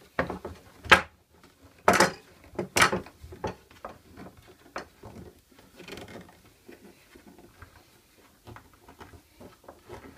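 Metal bar clamps being shifted and screwed tight against wooden blocks on a workbench. A few sharp clacks come in the first three seconds, then quieter clicking and rattling of the clamp screws and jaws.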